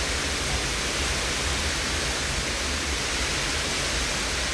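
Heavy monsoon downpour: a steady, even hiss of rain with a low rumble underneath.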